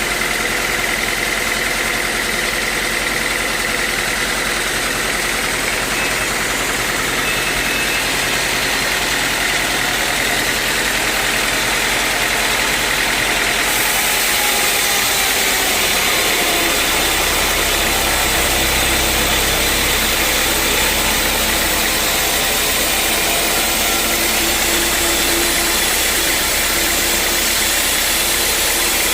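Engine-driven sawmill running steadily with continuous mechanical noise. About 14 seconds in the sound changes, growing brighter, and a low hum joins it a couple of seconds later.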